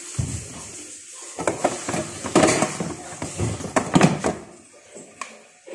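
Kitchen containers and utensils being rummaged and knocked about in a cupboard: a run of knocks and clatters through the middle, going quieter near the end.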